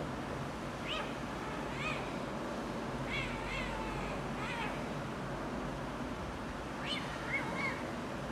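Kitten meowing: about eight short, high-pitched mews in two bursts, with a pause of about two seconds between them, over a steady hiss.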